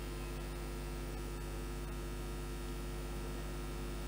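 Steady electrical mains hum: a low, unchanging hum with several evenly spaced higher overtones over faint hiss.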